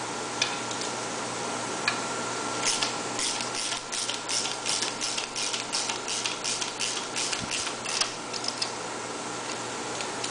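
Hand ratchet clicking in a steady rhythm, about three to four clicks a second for several seconds, as the housing bolts are run in, over a steady background hum.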